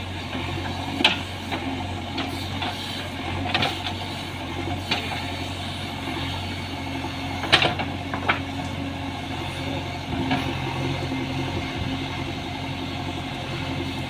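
JCB 3DX backhoe loader's diesel engine running steadily while its backhoe digs a trench, with a few short sharp knocks and scrapes of the bucket against soil and stones, the loudest about seven and a half seconds in.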